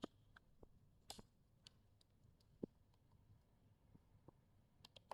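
Near silence with a few faint, scattered clicks and taps from multimeter test probes being handled and pushed into a mains socket.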